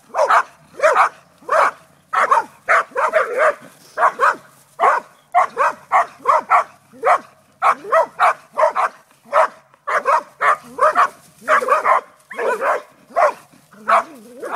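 Dog barking rapidly and repeatedly, about two to three short barks a second, at a snake it is attacking.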